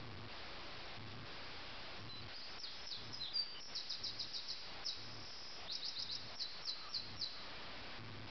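Common nightingale singing: a couple of seconds in it starts runs of quick, high repeated notes, which stop near the end, over a steady hiss.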